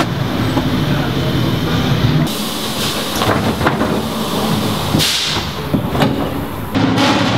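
The Panoz LMP07's Mugen Honda MF408S 4.0-litre naturally aspirated V8 idling, its pitch shifting about two seconds in and again near the end, with short bursts of hissing.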